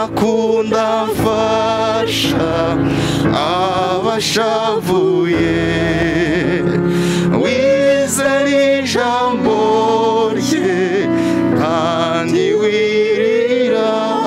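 Music: a gospel song, a voice singing over instrumental backing.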